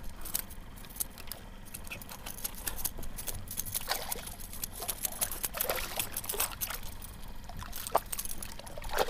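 Irregular water splashing and trickling from a small jack crevalle thrashing at the surface beside a kayak.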